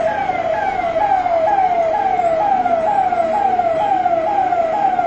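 Police vehicle siren wailing in a fast, repeating cycle, about two a second, each cycle jumping up and then sliding down in pitch.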